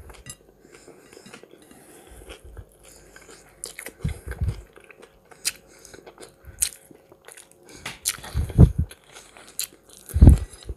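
Close-miked eating: chewing and biting with many small sharp clicks and a few heavy low thumps, about four, eight and a half and ten seconds in. The food is hot-smoked red perch being picked apart by hand.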